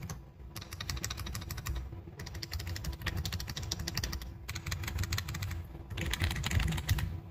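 Mechanical keyboard with JTK Cherry-profile keycaps being typed on rapidly, a dense clatter of keystrokes in several runs broken by brief pauses.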